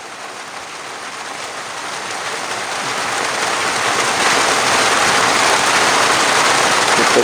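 Rain falling and growing steadily heavier, an even hiss that keeps building in loudness.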